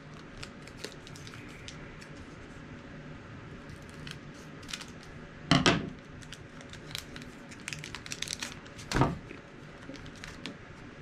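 A foil trading-card booster-pack wrapper being torn open and crinkled by hand: a run of small crackles and rustles, with two louder rips, one about halfway through and one near the end.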